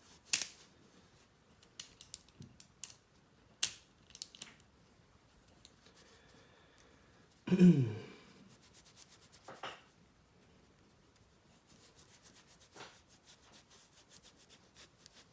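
Metal sonic screwdriver prop being handled and polished with a cloth: scattered sharp clicks and taps in the first few seconds, then a fast run of faint rubbing and ticking from about two thirds of the way in.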